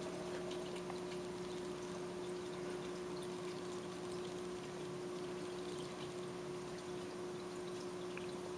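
Aquarium water trickling and bubbling steadily, with a steady low hum underneath.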